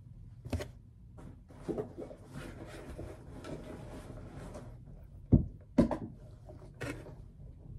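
Rummaging through a sports bag pocket: fabric rustling and scraping as items are pulled out and handled, with two sharp knocks a little past halfway as objects are set down on the table, and a lighter knock shortly after.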